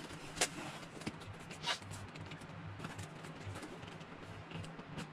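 Taped cardboard shipping box being worked open by hand, with a few short scrapes and knocks from the tape and flaps. The clearest comes about half a second in and a longer scrape a little under two seconds in, over a low steady hum.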